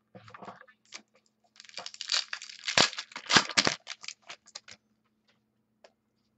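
Foil wrapper of a trading-card pack being torn open and crinkled by hand: a brief rustle, then a dense run of crackling crinkles from about a second and a half in, loudest around three seconds, dying away before five seconds.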